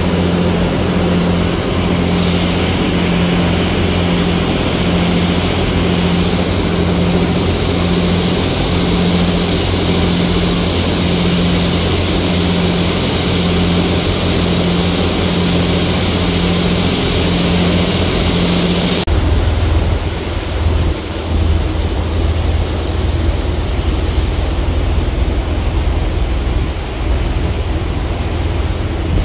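Ferry engines running at cruising speed over the rush of the wake and wind, the hum pulsing in a slow, even beat. About two-thirds of the way through, the sound cuts abruptly to a deeper, lower engine rumble with less water rush.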